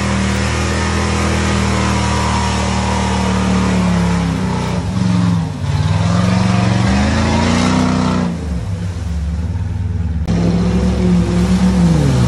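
Lifted pickup truck's engine running hard and revving up and down as it churns through deep mud and water, with mud and water spraying. After a sudden change about ten seconds in, a Jeep Wrangler's engine pulls through the mud, its pitch dropping near the end.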